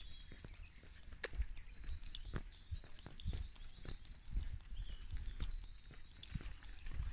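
Songbirds singing from the trees and hedgerow, with a quick run of repeated chirps about three seconds in, over soft thumps of footsteps on a paved lane.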